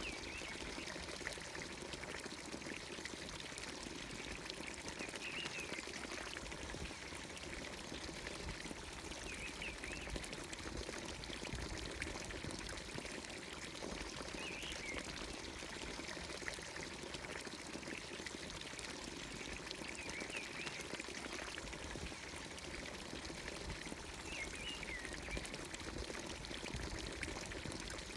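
Water pouring steadily from the spout of a village fountain into its watering trough, with a short bird call every few seconds.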